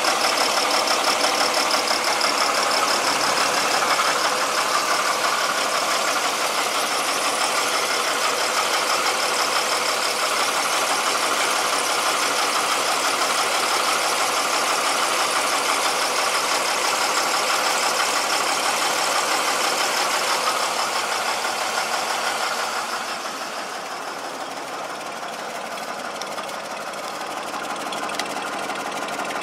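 International D1310 truck engine idling steadily and smoothly after a fresh retune of its mixtures and idle. The sound drops a little in level about three-quarters of the way through.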